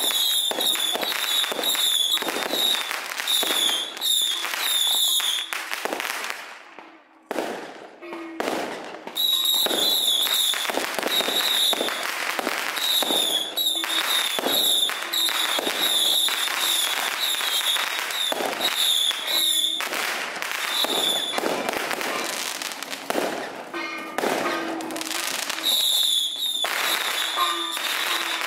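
Firecrackers and fireworks going off continuously in a dense, loud crackle, with a brief lull about seven seconds in.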